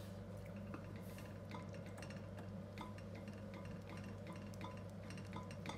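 Wooden spoon stirring glutinous-rice ube champorado in a pan as sugar is worked in, making many faint light taps and scrapes against the pan. A steady low hum runs underneath.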